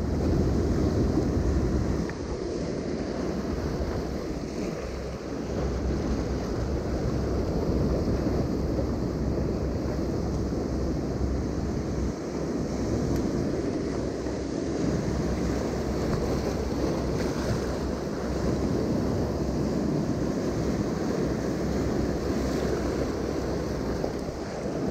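Sea surf washing steadily against a rocky shore, with wind buffeting the microphone, heaviest in the first couple of seconds.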